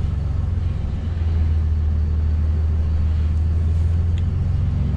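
Dodge 5500's Cummins inline-six turbo diesel running at low speed, heard from inside the cab as a steady low rumble.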